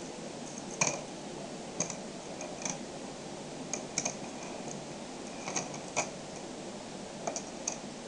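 Small magnetic balls clicking as they are handled and snapped into place on a wooden table: irregular single sharp clicks, roughly one a second, some in quick pairs, over a steady faint hiss.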